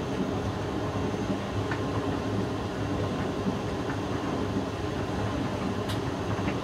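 Hoover DYN9144D3X front-loading washing machine mid-wash, its drum and motor making a steady rumble with a low hum.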